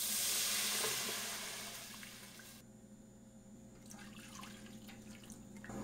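Milk poured from a steel tumbler into a hot pot of frying butter, garlic and green chillies. A hiss starts as the milk hits the pan and fades over about two seconds, followed by quieter pouring and small clicks.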